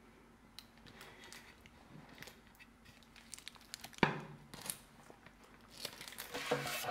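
Quiet handling noises: scattered crinkling and small clicks, with a sharper knock about four seconds in.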